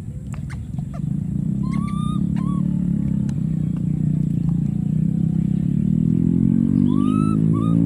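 A motor engine running steadily, its pitch rising over the last couple of seconds. Short high chirping calls come around two seconds in and again near the end.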